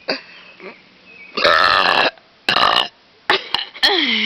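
Two loud, deliberate burps: a long one about one and a half seconds in and a shorter one right after. Near the end a voice rises and falls in pitch.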